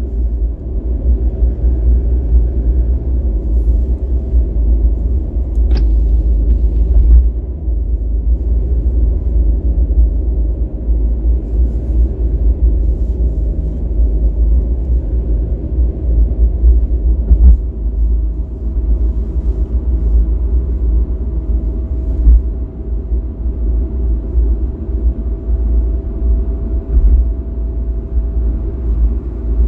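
Steady low rumble of a car driving: road and engine noise. A faint steady whine joins about halfway through.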